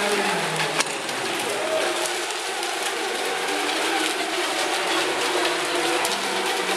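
Several small electric RC racing boats of the ECO MINI class running together: overlapping motor whines that waver in pitch, echoing in a tiled pool hall. One sharp click about a second in.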